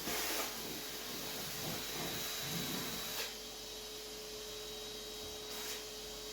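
Vacuum cleaner running steadily with a constant hum and hiss, the sound shifting about three seconds in as the cleaner moves.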